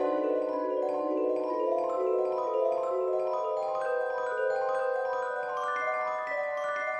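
Background music: a melody of short, evenly paced notes on a mallet instrument such as a glockenspiel or marimba.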